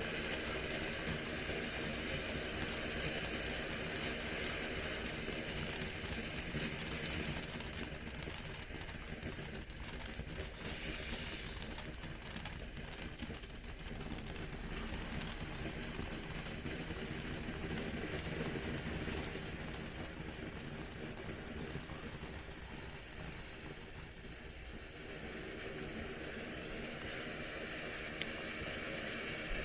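Firework fountain (Phantom Apache Fire Dance) spraying with a steady hiss. About 11 s in, one loud whistle of about a second sounds, dropping slightly in pitch.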